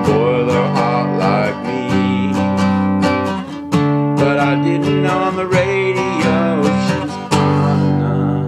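Acoustic guitar strummed in a steady rhythm, about four strokes a second, with a wavering melody line over the chords, ending on a held chord near the end.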